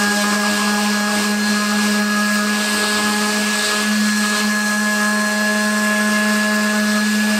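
Milwaukee M12 Fuel brushless orbital detail sander running at its top speed of 14,000 orbits per minute. An 80-grit sheet is pressed onto painted plywood, stripping the paint. It gives a steady, even-pitched hum over a sanding hiss.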